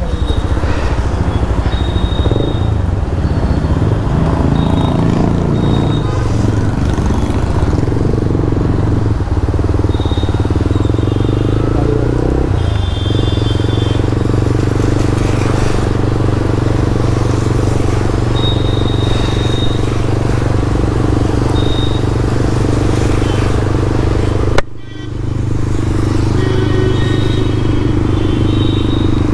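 Motorcycle engine running steadily under way as the bike is ridden, with road and wind noise. The engine note shifts about halfway through, and the sound breaks off sharply for a moment near the end before picking up again.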